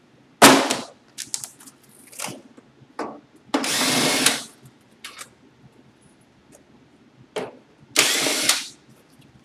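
Cordless drill/driver backing out screws from the wooden pallet in three short runs: one about half a second in, a longer one of nearly a second around the middle, and one near the end. Small clicks and knocks fall between the runs.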